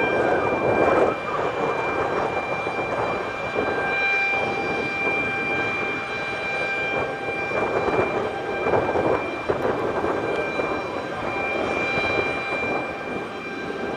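Jet airliner on the apron during pushback: a steady high turbine whine over an uneven rumbling noise that rises and falls.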